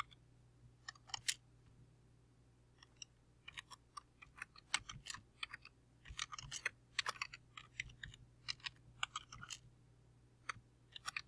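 Typing on a computer keyboard: irregular runs of quick keystrokes with short pauses between them.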